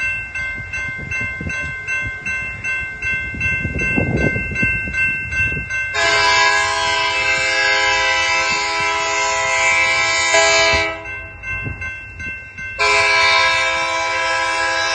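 Diesel locomotive air horn blowing a multi-note chord: a long blast begins about six seconds in and stops near eleven seconds, then a second blast starts near the end, the usual warning for a grade crossing. Before the horn, a crossing bell rings with a rapid, steady beat.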